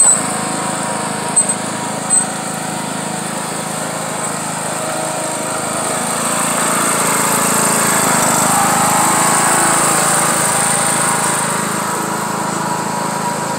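John Deere riding lawn mower engine running steadily, growing louder about halfway through as the mower pulls away under load, then easing off near the end. A few short sharp clicks sound in the first couple of seconds.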